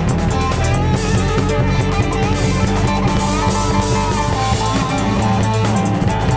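Rock band playing an instrumental passage: electric guitar with sliding, bent notes over a drum kit and bass.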